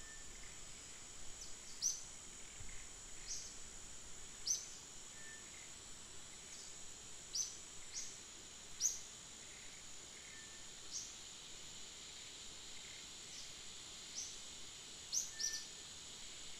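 Steady high-pitched insect drone with a bird calling over it in short, high, downward-sliding chirps, roughly one every second or so.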